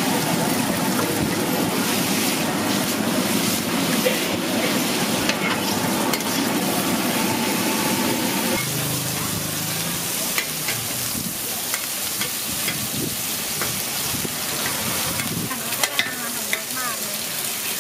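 Rice noodles sizzling and frying in a large shallow wok as they are stirred, with scattered clicks and scrapes of a metal spatula on the pan. The sound changes about halfway through; near the end, eggs and toppings fry on the hot oiled surface.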